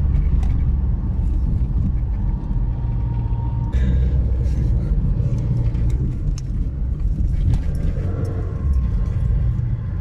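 Low, steady rumble of a car's engine and tyres on the road, heard from inside the moving car's cabin, with faint scattered ticks and rattles.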